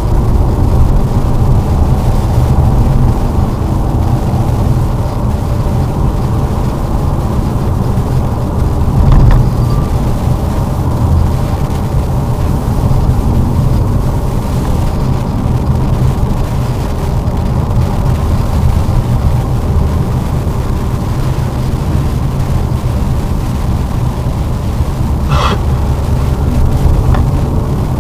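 Lada Vesta driving on a snowy road: a steady low rumble of engine and tyres, with a brief higher-pitched squeak near the end.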